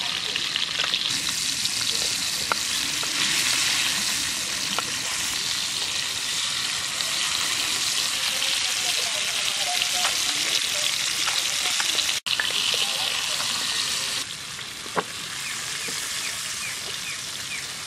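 Whole climbing perch frying in hot oil in a black frying pan: a steady, loud sizzle, with a few sharp clicks here and there. The sizzle breaks off for an instant about twelve seconds in and is quieter over the last few seconds.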